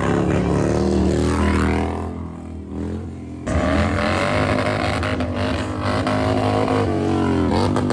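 Harley-Davidson V-twin motorcycle engine revving hard and held at high revs. It eases off about two seconds in, jumps back up about three and a half seconds in, and dips again near the end.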